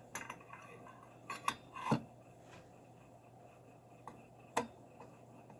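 A few sharp metallic clicks and clinks from small hard parts being handled, several close together in the first two seconds and one louder click later on.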